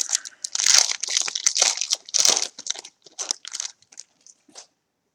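Wrapper of a 2015 Topps Valor football trading-card pack being torn open and crinkled in the hands: a quick run of crackling rustles that thins out after about three seconds and stops near the end.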